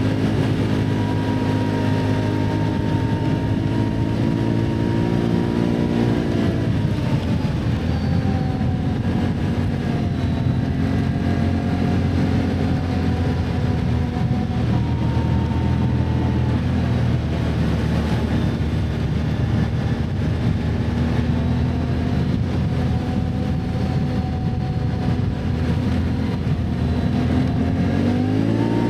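Can-Am ATV engine running while riding, its pitch easing off a couple of times and climbing again with the throttle.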